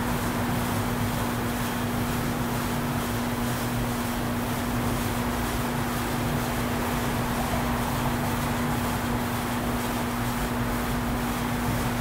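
Massed hum of many honey bees from an opened hive: a steady, even drone with one unwavering pitch running through it.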